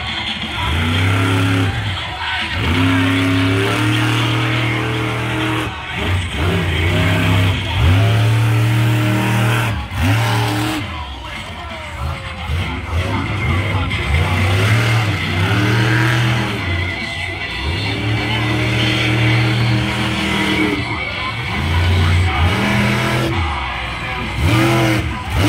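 Monster truck engine revving hard in repeated surges, its pitch climbing and dropping with each burst of throttle.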